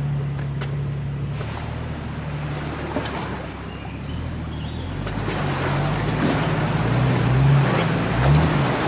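Jeep Cherokee XJ engine running as it wades through muddy water, heard from inside the cabin, with water washing and splashing against the body. From about five seconds in the revs rise and fall and the splashing grows louder as the Jeep pushes out of the water.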